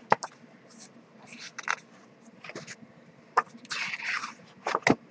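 Pages of a paper photo book being turned by hand: soft paper rustling and brushing with a few sharp flicks, the sharpest near the end.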